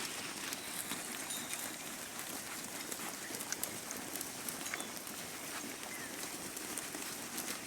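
Outdoor farm ambience: a steady hiss with many small, irregular clicks and taps, and one short falling bird chirp about five seconds in.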